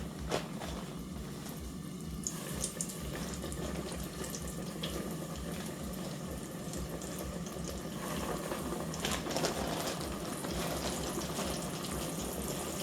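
Boneless chicken breast nuggets deep-frying in hot grease: a steady sizzle with scattered small crackles and pops.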